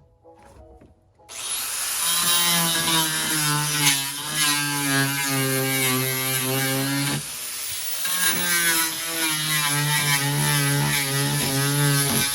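Power tool cutting through the boat's wooden floor, starting about a second in and running steadily under load, with a brief drop a little past the middle.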